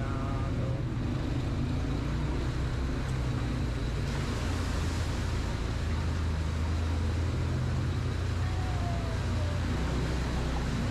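Two-person ATV's engine running steadily during a ride, a low drone with the rush of the ride over it.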